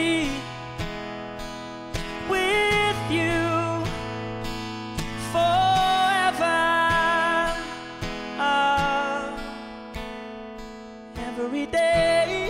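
A man singing with an Eclipse acoustic guitar, strummed chords under a vocal sung in several phrases with short gaps between them.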